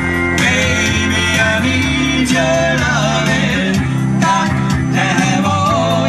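Background music: a song with a singing voice and guitar over a steady beat.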